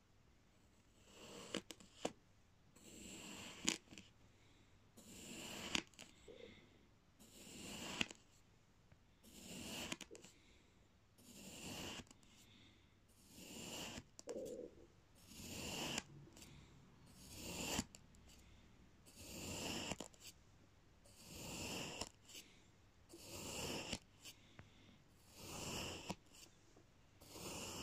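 A long steel blade slicing down through a slab of kinetic sand, about one cut every two seconds: each cut a short swell of crumbling sand, several ending in a sharp tick.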